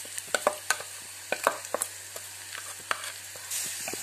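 Shallots, ginger, garlic and curry leaves frying in coconut oil in a metal wok, with a steady sizzle and repeated sharp clinks of a steel spoon against the pan. Near the end the sizzle grows louder as wet chilli-powder paste goes into the hot oil.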